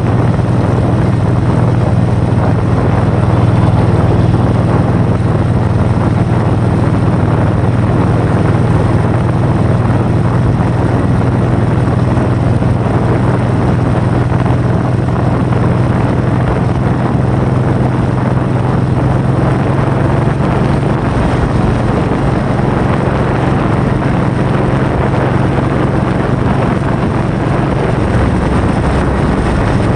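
Loud, steady wind noise over a low, steady hum; the hum shifts slightly about two-thirds of the way through and drops lower near the end.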